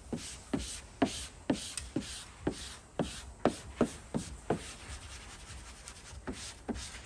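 Hand squeegee stroked over 3M air-release wrap vinyl laid on a vehicle hood, a rubbing swish about twice a second. The strokes stop after about four and a half seconds, and two fainter ones come near the end.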